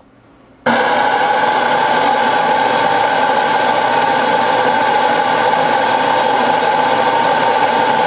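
Mahlkönig Pro M espresso grinder switching on under a portafilter about a second in and grinding steadily: a loud, even motor-and-burr whine with a strong steady tone, around 87 to 88 decibels on a phone meter.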